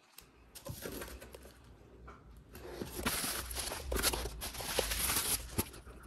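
Rustling and crinkling of plastic wrap, foam and cardboard packing as hands dig through an opened box and lift out a power adapter and its cord, with a few sharp clicks and knocks.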